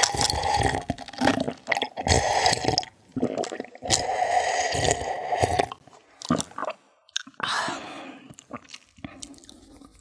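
Close-miked gulping and swallowing while drinking from a plastic cup: a run of repeated gulps for about the first six seconds, then softer mouth sounds that fade out.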